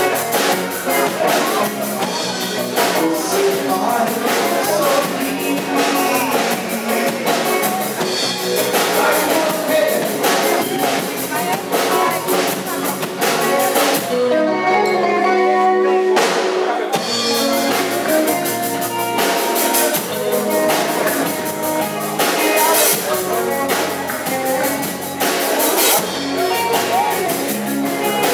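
A live rock band playing: drum kit, electric guitars and bass. About fourteen seconds in, the drums and cymbals drop out for a few seconds, leaving guitar notes, and then the full band comes back in.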